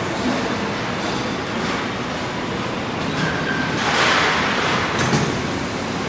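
Steady din of a car assembly plant floor, heard from a moving open electric cart: machinery and air noise with no clear rhythm. A short high tone sounds a little past three seconds, and the noise swells louder around four seconds.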